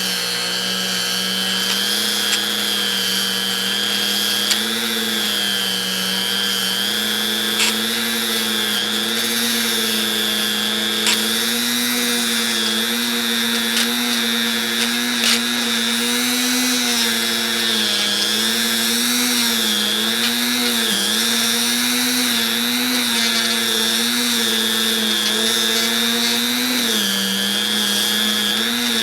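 Dremel rotary tool running continuously as it cleans up a pair of old steel pliers. It makes a steady high whine whose pitch wavers and sags slightly, with a brief dip near the end.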